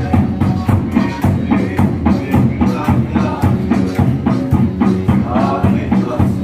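A congregation singing together over a steady drum beat, about three beats a second.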